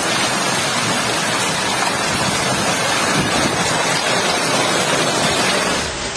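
Torrential rain mixed with hail pelting down, a loud, dense, unbroken hiss. It drops away abruptly near the end.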